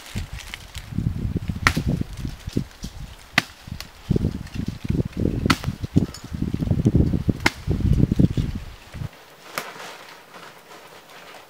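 Rustling of leaves and brush as someone moves and works through shrubs, with uneven low rumbling and a sharp crack every couple of seconds. It dies down to a low hum about nine seconds in.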